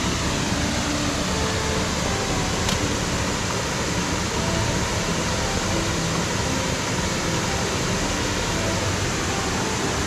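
Steady rush of water over the rocks of a shallow forest stream and nearby waterfall, an even noise that holds at one level throughout.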